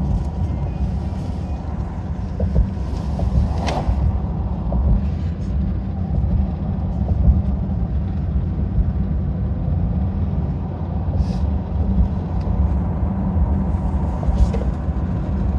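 Steady low rumble of a car driving along a road, heard from inside the cabin, with a brief click about four seconds in.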